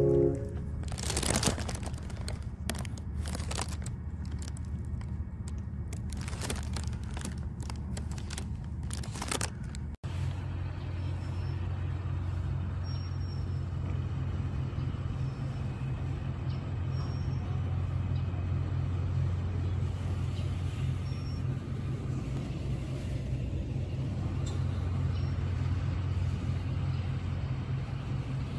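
A steady low mechanical hum, like an engine or machinery running, with irregular noisy bursts and clicks during the first ten seconds.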